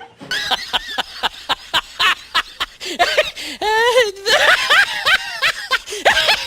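People laughing: quick repeated bursts of laughter, about four or five a second, with a longer rising-and-falling voiced laugh around the middle.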